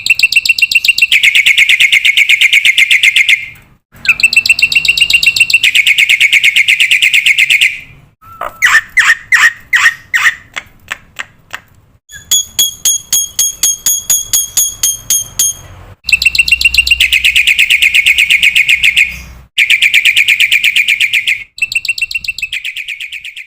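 Black-winged starling (jalak putih) calling in fast, loud trains of rattling chirps. The trains come in chunks of a few seconds that start and stop abruptly, as spliced recordings do. Around the middle there is a run of slower, separate notes, then a stretch of rapid high ticking.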